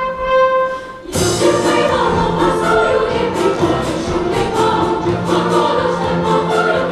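Children's choir and orchestra performing a song: a single held note, then the full choir and orchestra come in together about a second in and carry on at a steady, full level.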